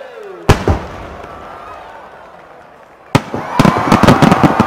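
Aerial fireworks shells bursting: a loud bang about half a second in, then a second one just after. After a lull, another bang a little after three seconds sets off a rapid string of cracks and pops from several shells at once.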